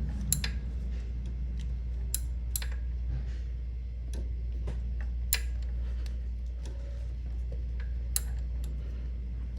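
Sharp metallic clicks and taps at irregular intervals from a wrench being worked in short strokes on the bolt of a Honda Fit's belt tensioner.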